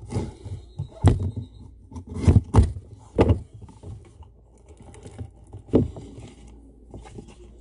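A sealed cardboard Hit Parade football card box being opened and handled: the seal is slit with a fingertip, then about five sharp taps and knocks of cardboard with scraping handling noise between.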